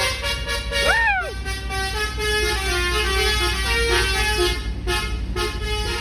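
Truck's telolet basuri musical horn playing a tune of short stepped notes over the low rumble of an idling diesel engine. There is a brief rising-and-falling glide about a second in.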